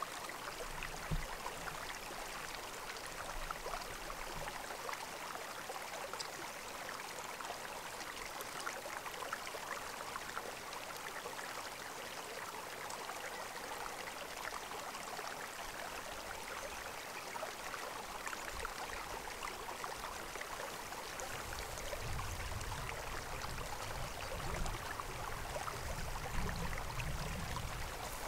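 Steady rush of flowing creek water. A low rumble joins in during the last several seconds.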